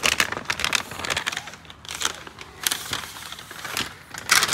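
Crackling, rustling handling noise: a run of small clicks and scrapes, with a louder burst near the end.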